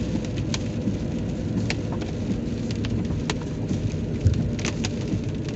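Heavy rain hitting a moving car, with many sharp drop strikes scattered over the steady low road and engine rumble. There is a single low thump about four seconds in.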